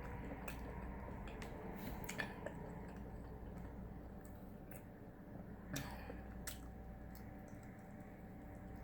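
Close-miked chewing and mouth sounds of a person eating a shrimp boil, with scattered small clicks; the sharpest come about two seconds in and just before six seconds.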